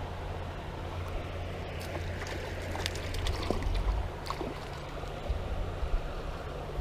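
Creek water running steadily, over a constant low rumble, with a scatter of light clicks and knocks between about two and four and a half seconds in.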